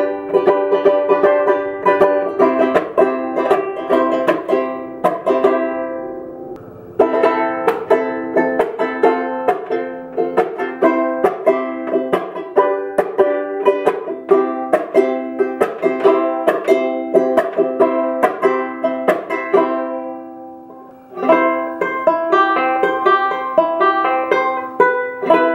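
Duke 10 banjo ukulele, a 10-inch drum with a polyvinyl head, strummed in chords as a playing demonstration. The chords ring out and die away twice, about six seconds in and near twenty seconds, before the strumming starts again.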